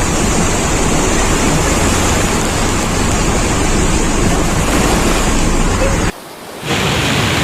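Floodwater rushing, a loud, steady noise that breaks off abruptly for about half a second near the end and then resumes.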